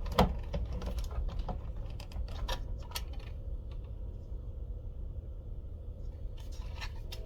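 Irregular small clicks and taps of parts being handled and fitted as a model train transformer is put back together. One sharp click comes just after the start, there is a quieter stretch in the middle, and a few more clicks come near the end.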